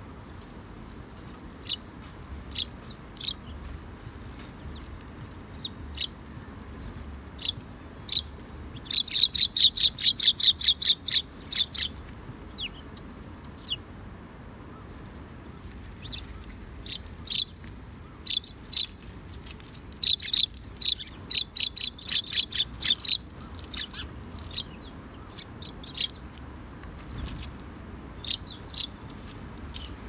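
Eurasian tree sparrows chirping: scattered single chirps, with two quick runs of rapid chirps, one about a third of the way in and one about two-thirds in.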